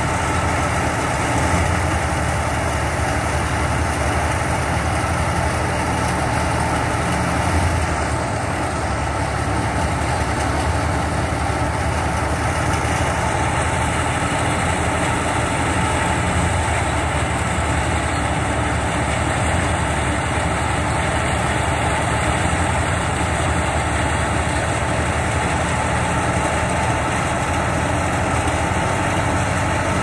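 Tractor-powered wheat thresher running steadily at working speed: the tractor engine and the threshing drum make one continuous machine sound.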